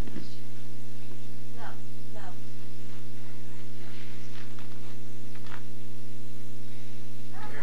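Steady electrical mains hum with a stack of overtones, unchanging throughout, with a few faint brief sounds over it.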